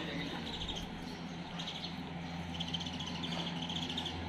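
Small birds chirping in several short bursts of quick, high notes, over a steady low hum.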